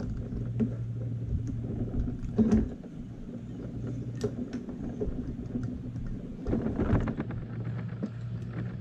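Clicks and knocks of a motorcycle carburetor bank and its metal parts being handled and pressed together on a wooden table, loudest at the start, about two and a half seconds in and about seven seconds in, over a low steady hum.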